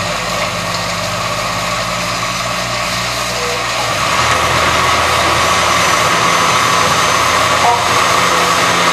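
Countertop blender motor running as it purees a jar of cooked lentil soup. About four seconds in, its note shifts and it gets louder.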